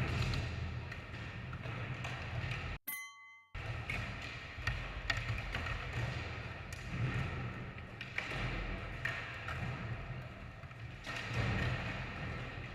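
Skateboards rolling and clacking on ramps, with repeated knocks and thuds of boards landing and hitting; the sound cuts out briefly about three seconds in.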